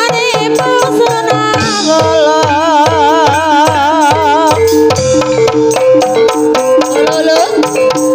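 Live Javanese gamelan music accompanying ebeg: struck metallophones repeat steady notes over a regular pattern of kendang drum strokes that drop in pitch, with a wavering melody line above through the middle.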